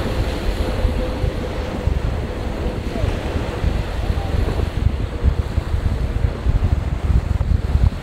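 COMAC C919 airliner's CFM LEAP-1C turbofans heard in flight, a steady rumble heavy in the low end, mixed with wind buffeting the microphone.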